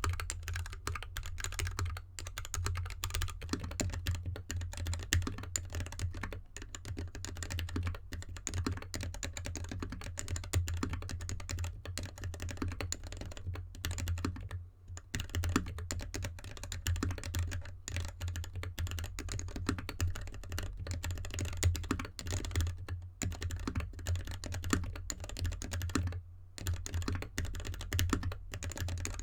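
Continuous typing on a GK64X mechanical keyboard in an anodized aluminium case, with lubed Gateron linear switches and DSA keycaps; after the first few seconds it rests on the bare desk with no mat. Short pauses come about 15 and 26 seconds in, over a steady low hum.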